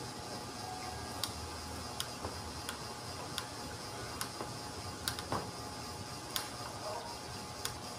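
Sharp, irregular clicks, roughly one a second, from a screwdriver turning screws in the housing of a forklift alternator, over a steady background noise.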